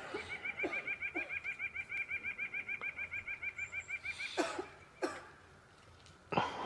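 Pileated woodpecker giving its laughing call: a rapid, even series of short notes that runs for about four seconds and then stops. A few short knocks or rustles follow near the end.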